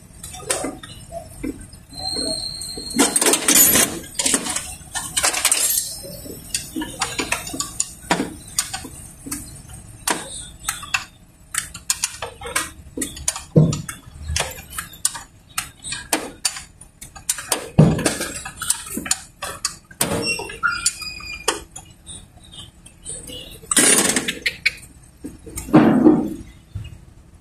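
Irregular metallic clinks, taps and scrapes of tools and engine parts being handled in a car's engine bay, with louder clusters of clatter now and then.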